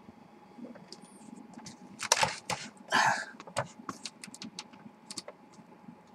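Hot oil spitting and popping in a lidded frying pan as scattered sharp crackles, with a couple of louder clattering knocks about two and three seconds in.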